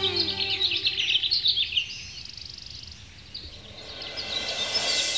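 Many small birds chirping, thickest in the first two seconds, with a short rapid trill, then thinning out. A rising wash of sound builds near the end.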